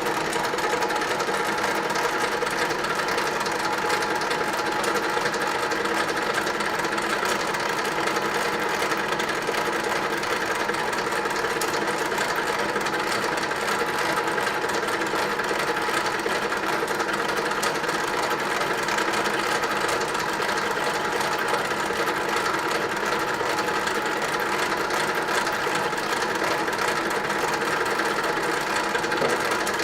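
Centre lathe running steadily through a turning cut, the carriage fed slowly by hand wheel: an even machine whine of several steady tones that holds unchanged throughout.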